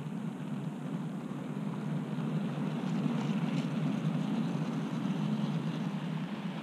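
OO gauge model train running along the track: a steady low rumble of wheels on rails, slightly louder in the middle, with a few faint clicks.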